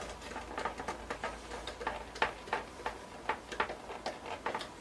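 A screwdriver driving a screw to mount a replacement power supply in a metal desktop PC case, making a run of sharp, irregular clicks, about three a second.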